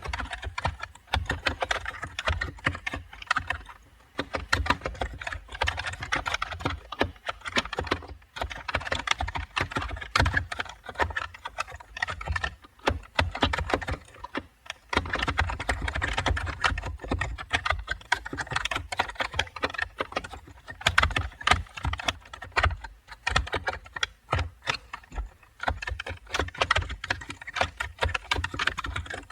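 Steady computer keyboard typing: a fast, irregular stream of key clicks with a few brief pauses between runs of keystrokes.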